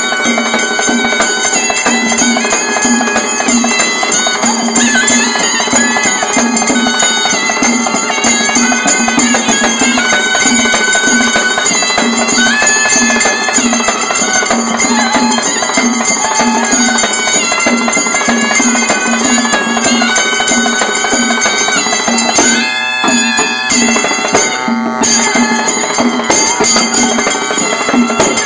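Live folk band music: halagi frame drums, a barrel drum and small hand cymbals keep a steady beat under a reedy melody played on brass wind instruments. The music briefly thins about three-quarters of the way through, then carries on.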